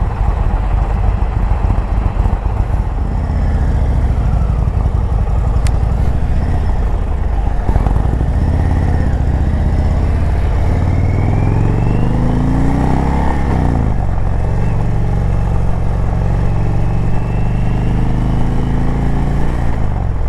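Indian Chieftain's V-twin engine pulling away and accelerating through the gears, with wind rushing past. After a low rumble, the revs rise, drop at an upshift about two-thirds of the way in, rise again, and drop with another shift near the end.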